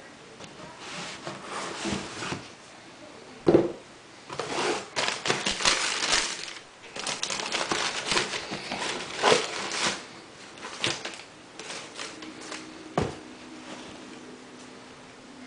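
Tissue paper crinkling and rustling as sneakers are handled and turned over, with a sharp knock a few seconds in and another near the end.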